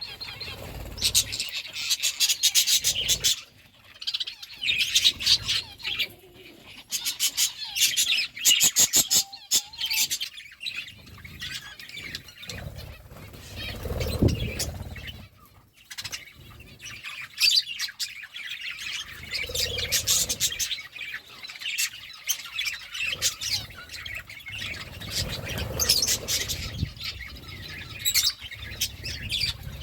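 Pet parakeets chirping and chattering almost without pause, in fast runs of short, scratchy, clicking notes, with a few dull low thumps in between.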